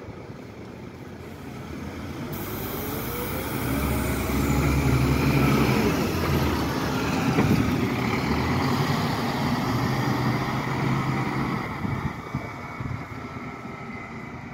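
Single-deck diesel bus driving past and pulling away, its engine building to a peak as it passes and then fading off into the distance. A whine rises in pitch as it starts to accelerate.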